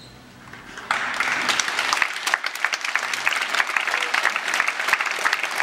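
Theatre audience bursting into applause about a second in: dense, loud clapping from a large crowd at the end of the ballet piece.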